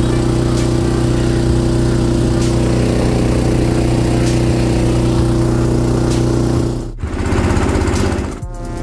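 Duromax XP18HPE 18 hp 440cc single-cylinder engine running steadily under way, driving a Mud-skipper Twister mudmotor. The engine sound breaks off suddenly about seven seconds in and again about a second and a half later, with a short stretch of a different engine note between.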